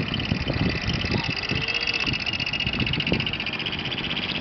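A Honda kei van's small engine running as it rolls slowly across gravel, with a steady, rapidly pulsing high tone above it.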